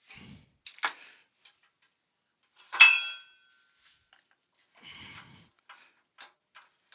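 Metal workshop tools handled and set down in a series of clinks and knocks, with one loud ringing clank about three seconds in.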